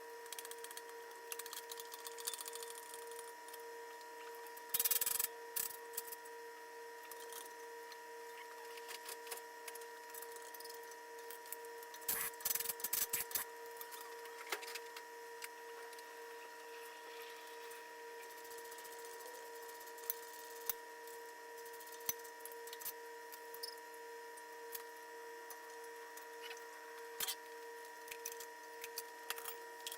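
Hand tools and metal parts clicking and knocking during shock absorber and coil spring disassembly, in scattered single clicks with louder clusters of knocks about five seconds in and around twelve to thirteen seconds, over a steady faint hum.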